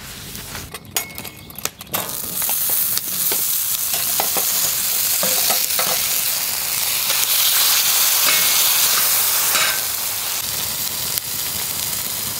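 Potato wedges sizzling on a hot, oiled steel grill plate, the frying hiss starting about two seconds in as they are tipped on. Before that there is a short rub of a paper towel over the plate and a few light knocks.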